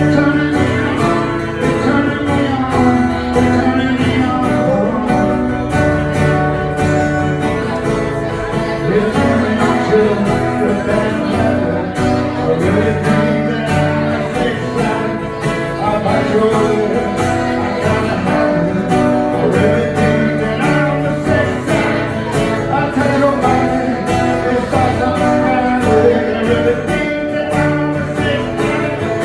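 Acoustic guitar playing a song with a voice singing over it, continuously.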